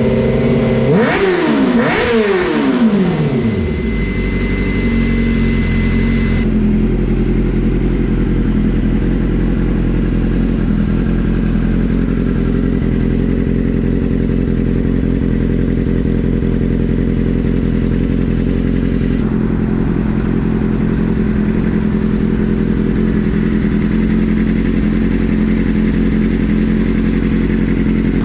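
2008 Suzuki GSX-R 600's inline-four engine through a new M4 GP full exhaust system. It is blipped twice in the first couple of seconds, the revs falling away after each, then it settles into a steady idle.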